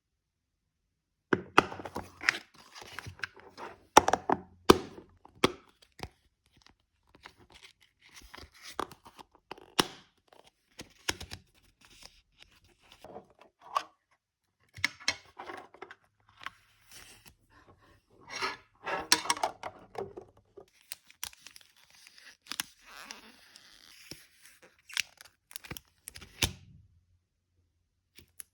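Intermittent tearing and crinkling, as of paper or plastic wrapping being handled, with scattered sharp clicks and taps; it begins about a second in.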